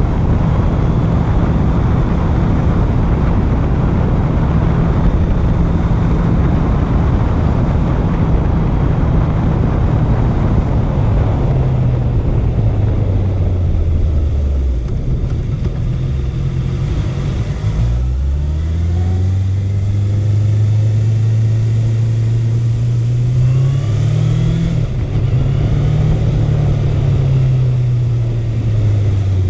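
Honda CB650F's inline-four engine under way: holding steady revs, then the revs fall as the bike slows about halfway through, before climbing again under acceleration with a gear change about three-quarters of the way in, then easing off.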